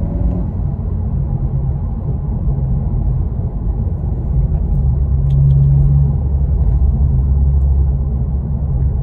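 2022 Honda Civic Si's turbocharged 1.5-litre four-cylinder running under way with road rumble, heard from inside the cabin: a steady low drone that swells louder about five seconds in.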